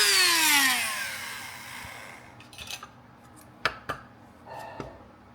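High-speed electric power tool switched off after cutting, its motor whine falling steadily in pitch as it spins down over about two seconds. A few light knocks and taps follow.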